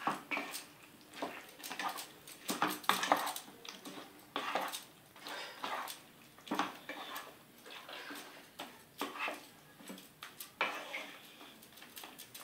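Spatula stirring and scraping fried cauliflower through thick Manchurian sauce in a non-stick wok, making irregular scraping and clacking strokes against the pan.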